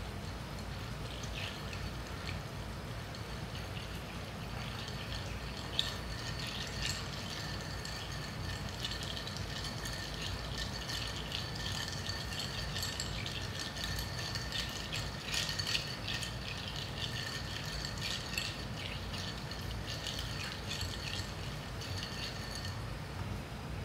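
Bar spoon stirring ice cubes in a glass mixing glass: a continuous light clinking and rattling of ice against the glass as a gin cocktail is stirred to chill it.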